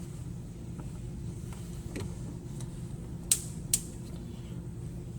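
Two sharp clicks close together about three seconds in, with a few fainter ticks, as a lubricated rubber hose is worked onto the oil separator fitting on a Hemi intake manifold, over a steady low hum.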